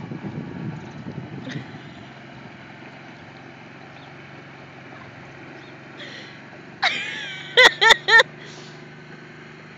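Small utility vehicle engine running under load while towing an SUV and trailer, rougher and louder in the first couple of seconds, then a steady low hum. About seven seconds in, a pitched sound is followed by three short, loud pitched blasts in quick succession.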